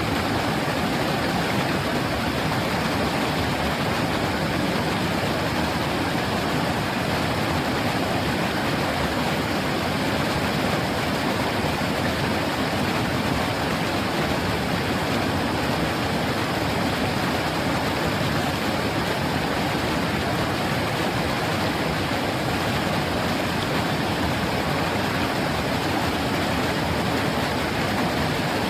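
River water flowing and babbling over shallows, a steady rushing noise.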